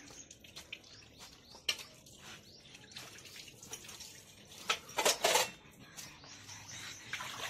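Steel dishes and utensils being handled: scattered light clinks and knocks, with a louder cluster of clatter about five seconds in.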